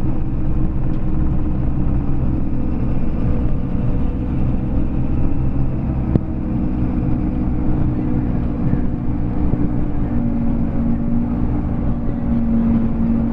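Engine of a trail-grooming vehicle running steadily, its pitch shifting slightly about halfway through, with a single click about six seconds in.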